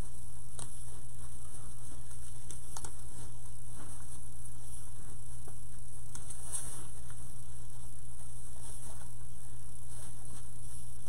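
Fabric ribbon rustling and crinkling in the hands as loops are folded and pressed onto a bow maker, with scattered soft clicks, over a steady electrical hum.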